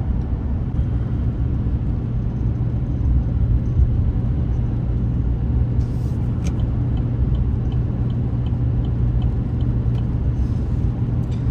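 Steady low road and engine rumble of a vehicle driving, heard from inside the cab. Midway there is a short run of faint, evenly spaced ticks, about three a second.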